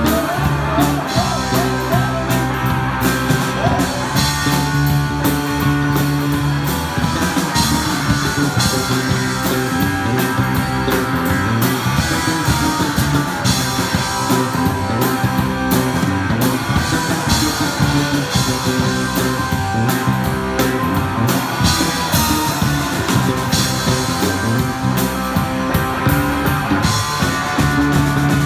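Live rock band playing loud: two electric guitars through amplifiers over a drum kit, with the drums hitting throughout.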